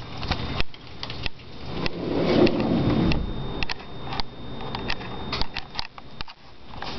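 Rain noise broken by scattered clicks and knocks of a handheld camera being carried indoors, with a louder rushing swell about two to three seconds in.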